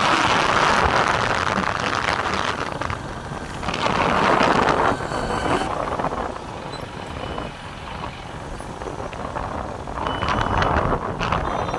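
Ride noise from a moving motorcycle: wind rushing over the microphone in surges, over the bike's engine and passing road traffic.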